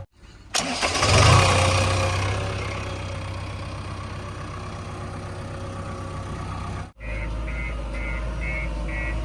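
Diesel engine of a JCB 3DX backhoe loader running at work, with a louder surge about a second in that settles to a steady run. The sound cuts out briefly twice. In the last couple of seconds a rapid, regular high beeping, like a reversing alarm, sounds over the steady engine.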